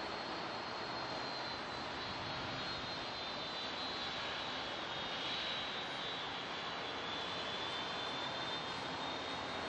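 Boeing 747-400F freighter's four jet engines running at taxi power: a steady rushing jet noise with a high whine that dips slightly in pitch in the second half.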